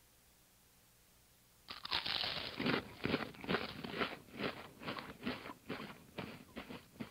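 Crunching: one long crunch a little under two seconds in, then a steady run of shorter crunches about two a second that grow fainter.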